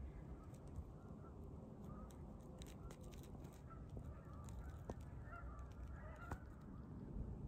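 Faint calls of distant birds, gathering about five to six seconds in, over low outdoor background noise, with a few short clicks about two to three seconds in.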